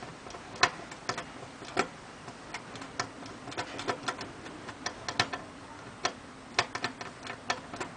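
Small metallic clicks, irregularly spaced, from a tubular lock pick working the pins of a 7-pin tubular safe lock as it is picked back toward the locked position; the lock is refusing to relock.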